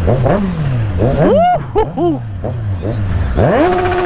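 Kawasaki Z1000's inline-four engine revved hard in a string of quick blips, the pitch jumping up and falling back each time. Near the end it is revved up again and held at a steady high pitch, bouncing on the rev limiter.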